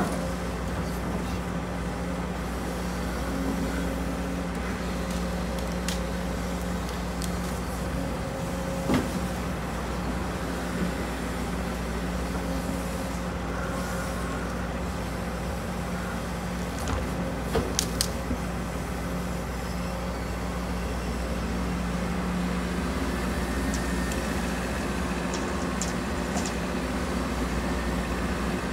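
Case CX210D excavator's diesel engine running steadily with a constant hum while it digs and lifts a bucketload, rising slightly near the end. A few short knocks, including three quick clicks just past the middle.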